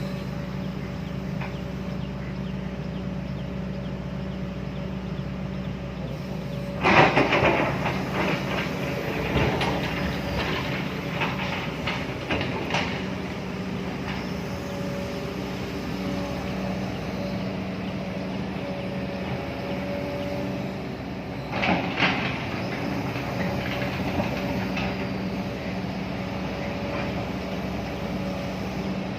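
Excavator's diesel engine running steadily, with a loud burst of clanking about seven seconds in that trails off in scattered knocks, and a shorter burst of clanking near the end.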